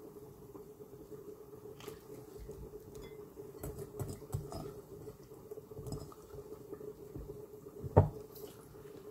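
Hands squeezing salted onion pieces to wring out the water, with small drips and splashes into a glass bowl. A single sharp knock about eight seconds in.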